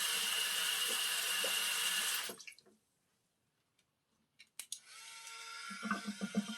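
Sink tap running, shut off a little over two seconds in. After a few light clicks and a moment of quiet, music with a steady beat comes in near the end.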